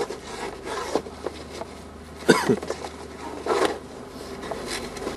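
Irregular rustling and crunching of footsteps in snow and winter clothing, with a louder short sound about two seconds in.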